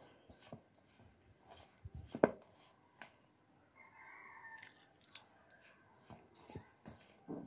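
A hand rubbing and squeezing crumbly thekua dough of wheat flour, maida, semolina, sugar and oil in a steel bowl: faint rustling with scattered small knocks, and one sharp knock about two seconds in. Around four seconds in, a little water is poured in from a steel cup.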